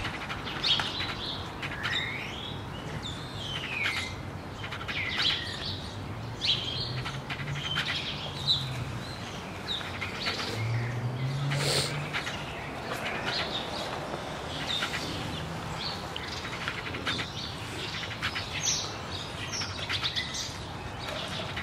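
Small birds chirping repeatedly, short falling and rising calls throughout, over a low background hum.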